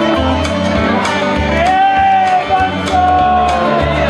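Loud band music with guitar and a steady drum beat, and a voice holding two long sung notes about halfway through.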